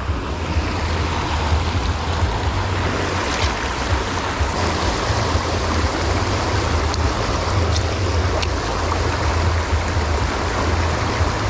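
River water rushing steadily, a dense even wash of flowing water with a deep low rumble under it. A few faint light clicks come through it.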